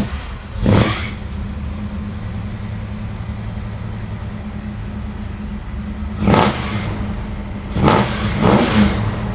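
1973 Ford Bronco's 408 stroker V8 idling steadily through its custom exhaust. There is a quick rev about a second in, and three more throttle blips in the last three seconds.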